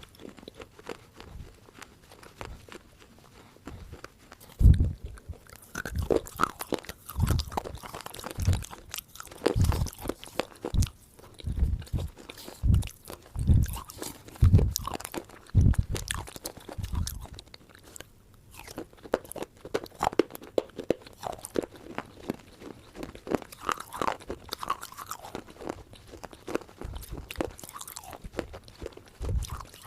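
Crunchy food being bitten and chewed close to the microphone: a dense crackle of crunches with a run of heavier bites about once a second between roughly 4 and 17 seconds in.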